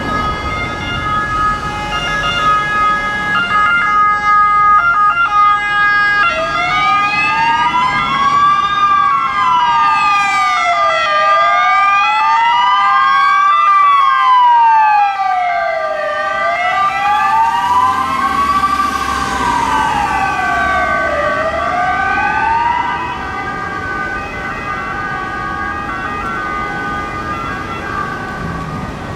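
Ambulance wail siren, its pitch rising and falling slowly in cycles of about five seconds, with steady high tones sounding alongside. The wail starts about six seconds in and stops a few seconds before the end.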